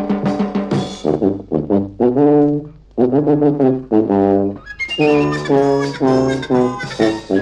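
Instrumental music: a brass-led introduction playing a run of separate, rhythmic notes.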